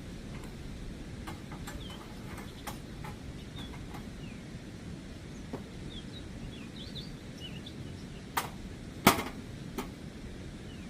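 Outdoor ambience with a steady low rumble and faint bird chirps, broken by a few sharp clicks or knocks, three of them close together near the end, the middle one the loudest.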